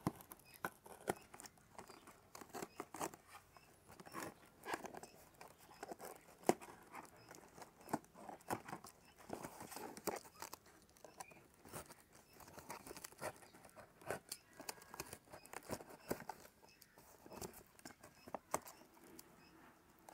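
Box cutter scoring and slitting the packing tape on a cardboard shipping box: scattered scratches, clicks and short tearing strokes, with the cardboard flaps rustling as they are pulled open near the end.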